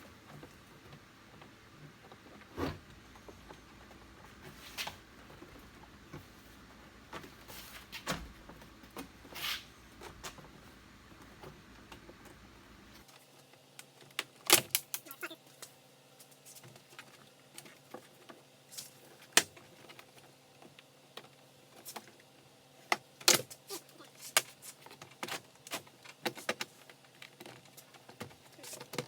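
Scattered plastic clicks and knocks of a Jeep Wrangler JK's inside door panel being fitted back on, its trim clips pushed into place. The clicks are sparse at first and come closer together from about halfway through.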